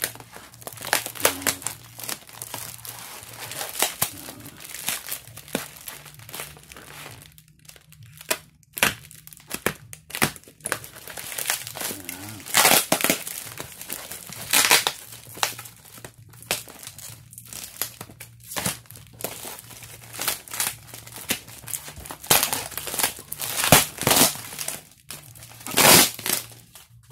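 Plastic air-column bubble wrap crinkling and rustling as it is pulled and worked off a boxed item, in irregular handfuls with several louder crackles.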